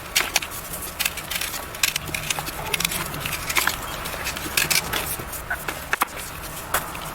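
Cast blocks of gym chalk being crushed and crumbled: an irregular run of crisp crunches and crackles with a few sharper snaps.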